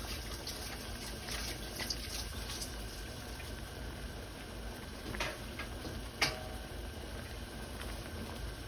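Kitchen water sounds, with dripping and pouring into a pot or sink. A few light clinks are heard, and two sharper knocks of utensils or dishes come about five and six seconds in, the second ringing briefly.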